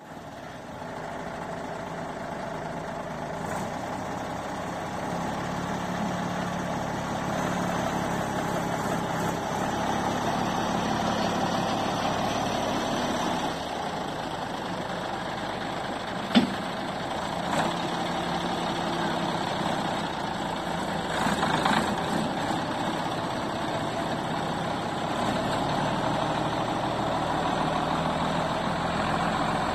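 Valmet 2105 tractor's diesel engine idling steadily, with one sharp knock about halfway through and a smaller one just after.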